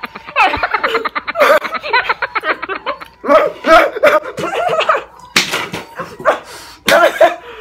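Hearty laughter, chopped into quick pulses, mixed with excited voices and short loud outbursts, twice near the end.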